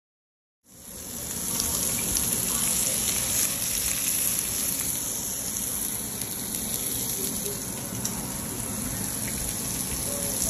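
Steady sizzling hiss of food frying, starting about half a second in and swelling over the next second.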